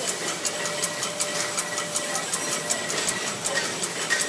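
Power hammer running and striking steady, even blows about three a second, over a steady machine hum.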